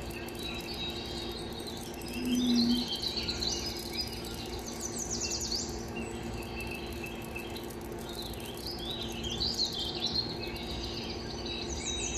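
Birds chirping and twittering in quick high, falling sweeps, most likely from the television's soundtrack, over a steady low hum. A short low tone about two seconds in is the loudest sound.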